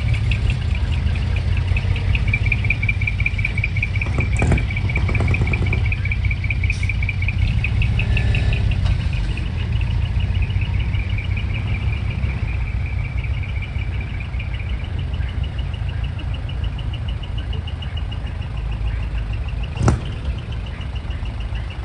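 Truck engines idling and crawling slowly, a steady low rumble. A high, fast-pulsing chirp runs over it and shifts slightly higher about halfway through. A single sharp click comes near the end.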